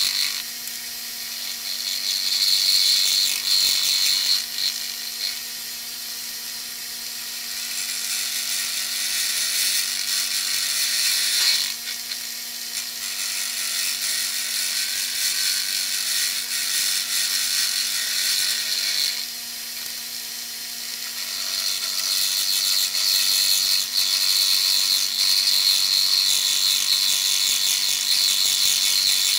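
End mill in a Delta Rockwell drill press cutting an aluminium fitting: a high-pitched cutting noise over the steady hum of the press, swelling and easing as the cut goes on and loudest in the last third. It is a facing pass taking down the fitting's height.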